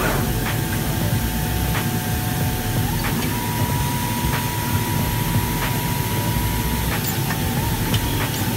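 FK Group Universal 8 automatic fabric cutting machine running as it cuts through a stack of coated fabric layers. There is a steady machine noise, a thin whine that steps up in pitch about three seconds in and drops back near seven seconds, and scattered short ticks.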